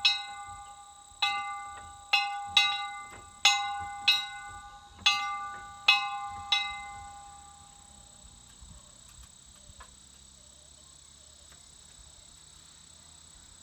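A small Liberty Bell replica is being struck about eight times at an uneven pace, and each strike rings with several clear overtones. The ringing dies away about eight seconds in, leaving faint insect chirping.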